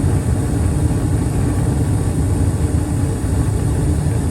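Bryant 310AAV gas furnace running with its burners lit and the inducer fan going: a steady low running noise with a faint hum. The furnace is firing normally on a newly replaced hot-surface igniter.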